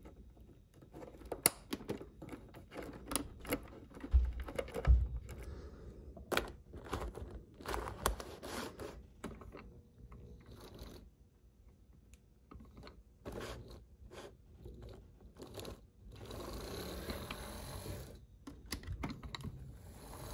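Small plastic clicks and taps as the HO-scale Athearn locomotive chassis is handled and set on the track, then from about three-quarters of the way in a steady whir of its open-frame motor and drive running. The motor wobbles in its mounts and is slow to pick up power, which the owner takes for loose motor mounts.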